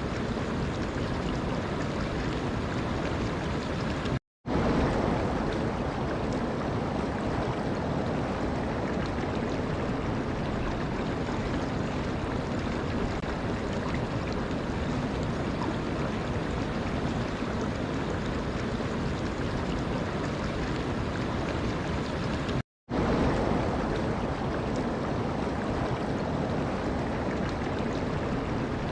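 Steady rush of flowing water. It drops out to dead silence for a split second twice, about four seconds in and again near twenty-three seconds, where the recording is joined.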